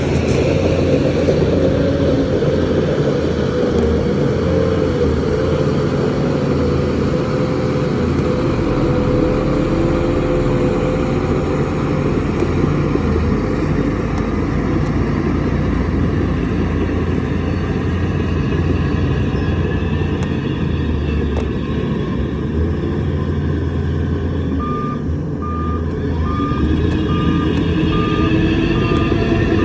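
Heavy diesel engine of a construction machine running steadily under load. Near the end a reversing alarm starts, beeping a single steady tone about twice a second.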